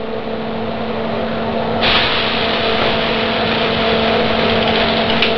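Chuck roast dropped into a skillet of hot oil to sear, breaking into a strong, steady sizzle about two seconds in, over a steady low hum.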